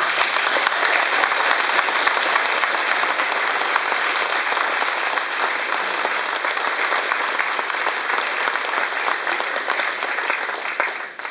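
Audience applauding, starting all at once and dying away abruptly just before the end.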